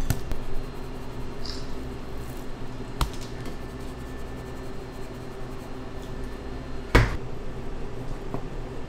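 Kitchen work noises over a steady machine hum: some clatter at the start, then two sharp knocks about four seconds apart, the second one louder.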